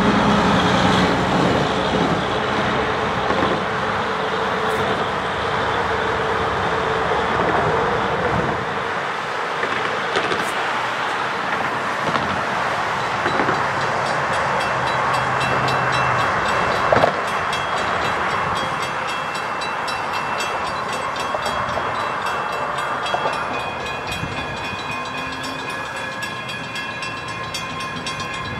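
A truck engine and road traffic pass, then about halfway in a railroad grade-crossing bell starts ringing rapidly and keeps going as the crossing signals activate for an approaching train.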